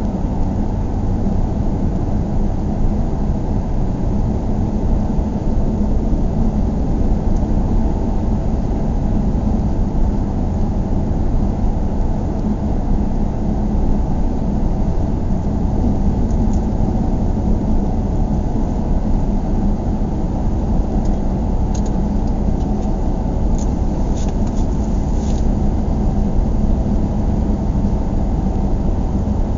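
Car driving, heard from inside the cabin: a steady low rumble of road and engine noise with a constant hum, and a few faint clicks about three-quarters of the way through.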